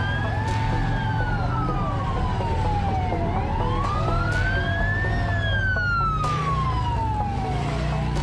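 Emergency-vehicle sirens. One wails in long slow sweeps, falling for about two and a half seconds and rising for about two, twice. A second siren's shorter warbling tones repeat beneath it, over a steady low rumble.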